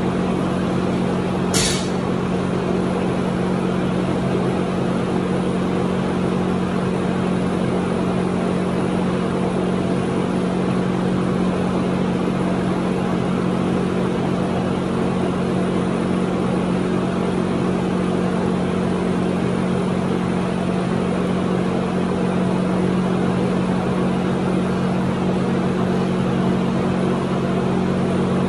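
Steady machine hum with a strong low tone, unchanging throughout, like a motor running continuously. One sharp knock about a second and a half in.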